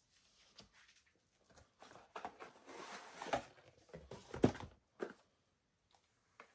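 Packaging being handled: rustling and crinkling of plastic wrap and a cardboard blind box, with a couple of sharp taps about four and a half and five seconds in.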